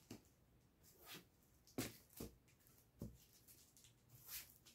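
Faint handling noises as books are picked up and moved: about half a dozen soft, irregular knocks and rustles over quiet room tone.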